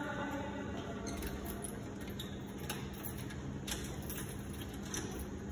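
Metal lever handle and lock of a wooden door being worked by hand: scattered small clicks and rattles, over a faint steady hum.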